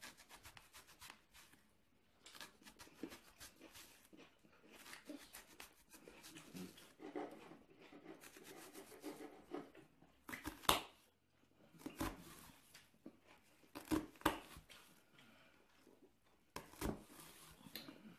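Kitchen knife cutting an onion on a plastic cutting board: irregular slicing and light taps of the blade on the board, with a few louder knocks in the second half.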